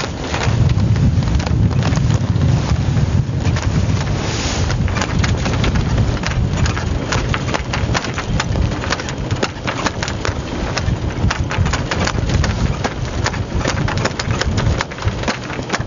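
Wind buffeting the microphone aboard a small sailing boat, a heavy low rumble, with rapid irregular knocking and rattling over it.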